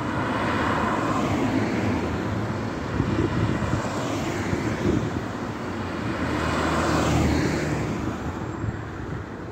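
Road traffic: cars driving past on a multi-lane avenue, their tyre and engine noise swelling as one passes near the start and again around seven seconds in.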